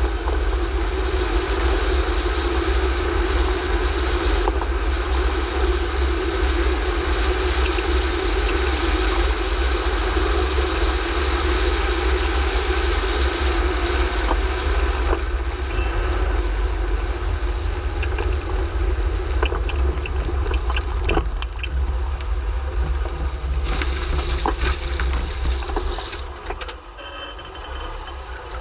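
Road and running noise of a Subaru Forester XT recorded at the front nearside wheel while it is driven slowly, with a deep steady rumble. About two-thirds of the way through comes a cluster of short sharp clicks and knocks, where the car's low-speed front clunk is being listened for. The noise eases near the end.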